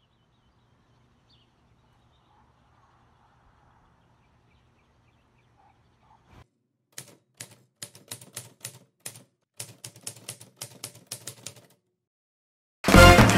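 Typewriter key strikes: a rapid, irregular run of sharp clacks lasting about five seconds, after a stretch of near-silent room hum. Music comes in loudly right at the end.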